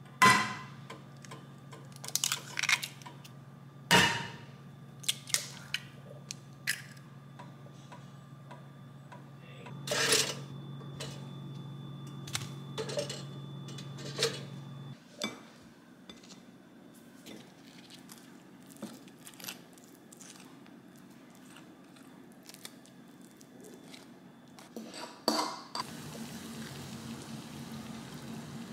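Kitchen cooking sounds: a sharp crack of an egg against a frying pan at the start, then scattered clinks and taps of utensils on the pan and dishes. A steady low hum runs underneath and stops about halfway through.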